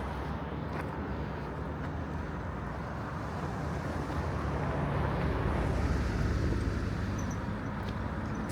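A passing or moving car: a steady low rumble of engine and road noise, swelling a little past the middle.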